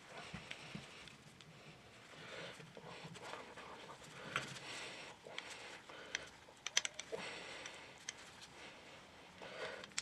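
Faint handling noise as a new parking-brake bell crank's long pin is pushed through its greased rubber bushings. Gloved hands rub against the parts, and small metal pieces give light clicks, with a quick cluster of sharp ticks about seven seconds in.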